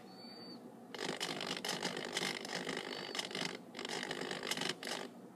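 RC jet boat's steering servo working the nozzle's steering linkage: a rattling gear noise that starts about a second in and runs in two spells, with a short break about three and a half seconds in.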